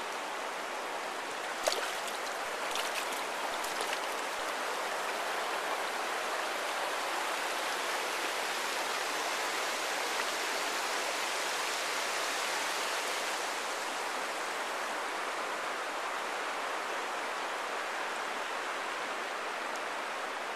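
Shallow river running over rocks: a steady rush of water, with a few short clicks in the first few seconds.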